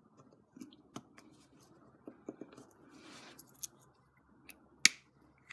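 Small clicks and light rustling of hand-handled RC buggy parts as ball bearings are fitted into the plastic front spindles, with one sharp, louder click near the end.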